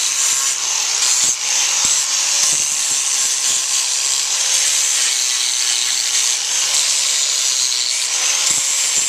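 Electric power grinder running steadily, grinding down a horse's hind hoof, with a continuous hiss and a faint motor whine that wavers slightly in pitch.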